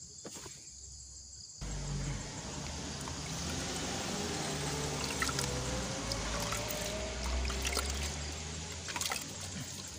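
Water pouring and splashing onto the leaves and potting mix of a potted bird's nest fern as it is washed. It starts suddenly about one and a half seconds in and runs steadily until near the end, with a faint tone that rises in pitch midway.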